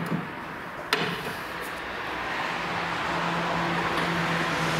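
A single sharp metal clink about a second in as a new ball joint is fitted to the front hub carrier, followed by a steady low hum that grows louder over the last two seconds.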